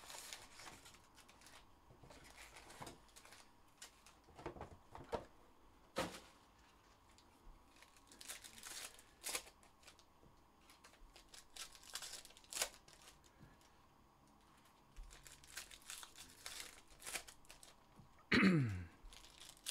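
Trading-card pack wrappers being torn open and crinkled, with cards being handled: faint, scattered rips, rustles and clicks.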